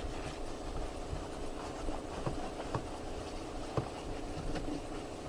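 A cloth wiping down a boat's window frame by hand: soft rubbing with a few light taps, over a steady background hum.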